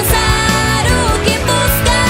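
Background pop music with a female singing voice and a steady beat.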